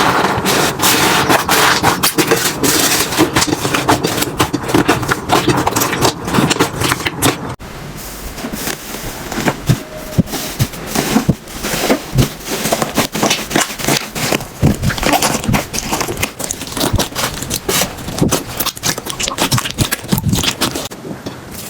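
Slime being squeezed and poked by hand, giving a dense run of crackling, popping clicks. About seven and a half seconds in, the sound changes abruptly to sparser, quieter pops.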